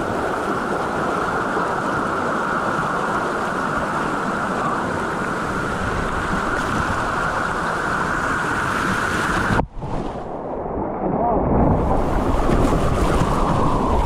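Fast white water rushing and churning down a concrete rafting-slide channel, heard close to the water surface with wind buffeting the microphone. About ten seconds in the sound drops out for a moment, then goes muffled and turns into a louder, deep rumble as the microphone dips into the water.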